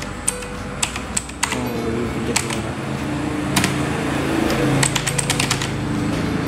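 Digital Alliance Meca Z mechanical keyboard with clicky blue switches, keys pressed one at a time at irregular intervals, then a quick run of presses about five seconds in. A steady low hum sits underneath.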